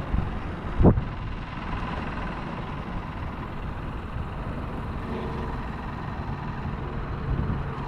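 Electric trolling motor running with a steady low hum, its battery going dead. A single thump about a second in.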